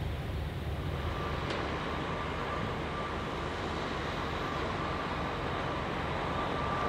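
Steady low rumble and hiss of outdoor ambience. A faint, steady high tone joins about a second in, and a single faint click follows shortly after.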